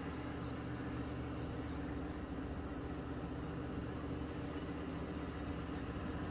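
Steady engine drone of two diesel locomotives hauling a long freight train, running slowly as it approaches.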